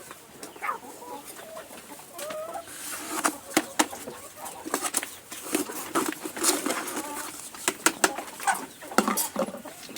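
Domestic chickens clucking with short calls, amid many sharp clicks and taps.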